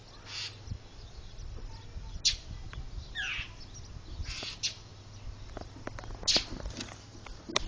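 Birds giving short, harsh alarm calls, about half a dozen spread out, one sliding in pitch: mobbing calls as they gang up on and dive at a cat.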